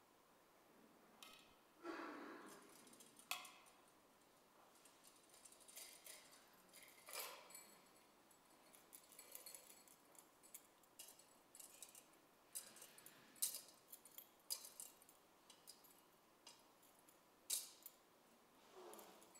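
Faint, scattered sharp clicks and light clinks, with a softer rustle about two seconds in.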